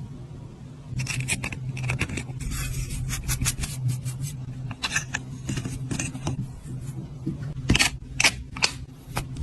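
Irregular clicks and short scraping sounds of small objects being handled, over a steady low hum.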